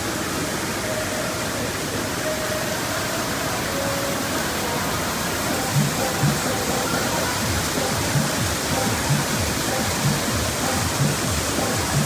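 Fast, muddy stream rushing and churning white over its bed, a loud steady roar of water. Faint background music plays underneath, with a low beat coming in about halfway.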